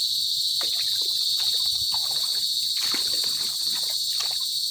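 Steady high-pitched insect chorus. From about half a second in until near the end, irregular crunching and squelching steps through mangrove mud, twigs and shallow water.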